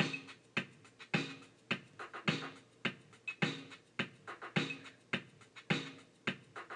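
A hip-hop backing beat for a rap: an even pattern of kick- and snare-like hits at about two a second, with no voice yet.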